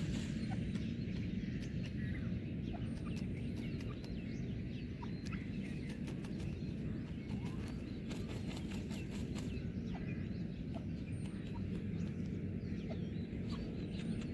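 Birds chirping and clucking in short scattered calls over a steady low outdoor rumble, with a short run of rapid ticks about two-thirds of the way through.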